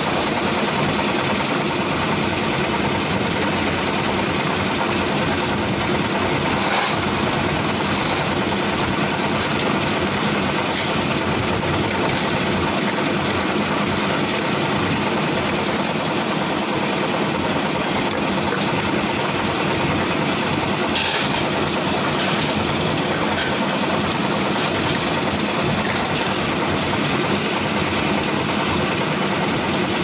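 Lift-type concrete mixer machine running steadily, its engine and turning drum making a continuous mechanical din.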